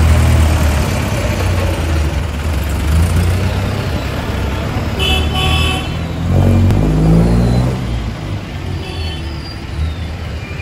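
Street traffic: vehicle engines, among them jeepneys, running with a steady low rumble, a short horn toot about five seconds in, and an engine revving up soon after as a vehicle pulls away.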